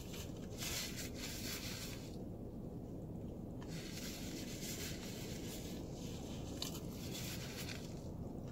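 A person eating a fried chicken sandwich: quiet chewing and mouth sounds, with soft rustling and scraping from a paper napkin wiping the mouth in several short patches, over a steady low background rumble.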